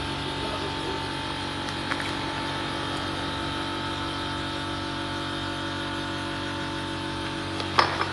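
Steady machine hum with several fixed tones. Brief clicks about two seconds in, and a louder pair near the end.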